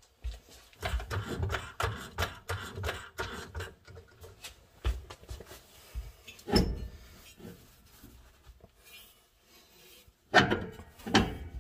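Hand work on a car's front suspension: a quick run of small metal clicks and rattles, a single knock a few seconds later, then two louder knocks near the end.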